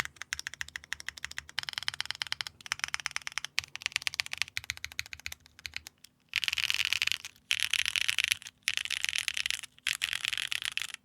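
Luminkey80 mechanical keyboard with a polycarbonate plate, stock Kailh BCP switches and GMK ABS keycaps being typed on: quick runs of keystrokes with brief pauses. From about six seconds in, four runs of very fast, dense key presses, about a second each, with short gaps between.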